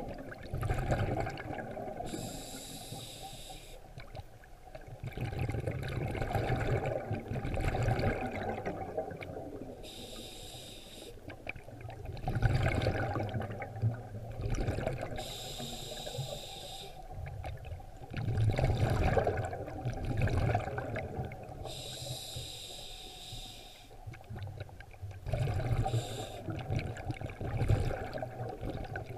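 Scuba diver breathing through a regulator, heard underwater: each breath is a short hiss on the inhale, then a rush of bubbles on the exhale, repeating every several seconds.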